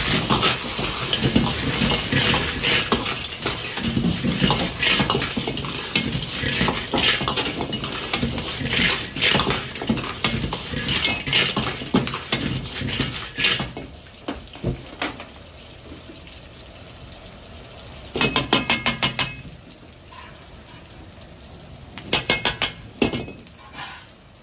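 Smooth river stones tossed and stirred in a wok, clattering against the metal and the ladle while the oil sizzles. The clatter stops about fourteen seconds in, and two short bursts of quick rattling follow later.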